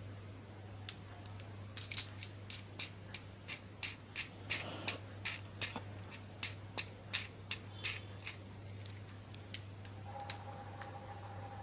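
Light metallic clicks, about two to three a second for several seconds, then a few scattered ones, as a bearing puller is worked to draw a ball bearing off a ceiling fan's shaft.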